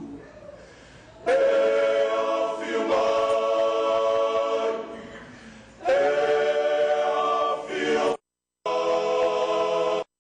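A choir singing long held chords. One phrase swells in about a second in and fades out near five seconds, and a second phrase begins at about six seconds. The sound cuts out abruptly twice near the end.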